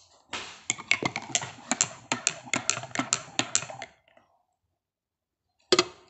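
Close handling noise from a black shoulder bag being handled right by the microphone: a quick run of clicks and rustling for about three and a half seconds that cuts off suddenly. After a short silence, one sharp click comes near the end.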